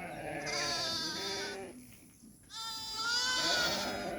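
A flock of sheep bleating, several animals calling over one another at different pitches, in two bouts with a short lull about halfway through.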